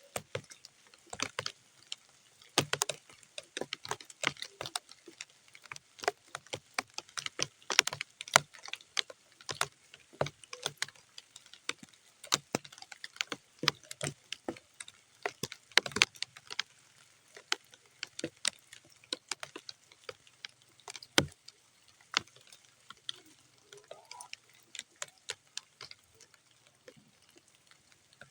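Rain falling onto muddy ground as separate, irregular drops and splats rather than a steady hiss. The drops come thick through the first half and thin out after about sixteen seconds.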